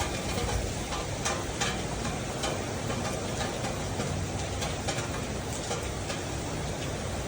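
Steady rain, an even hiss with scattered sharper drop ticks.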